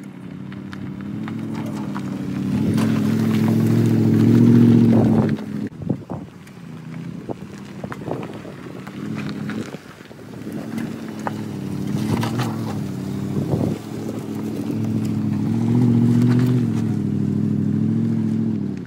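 Lexus GX SUV's V8 engine running under load at crawling speed up a rocky dirt trail, its note wavering and swelling twice as the truck comes close, with tyres crunching and popping over gravel and rocks.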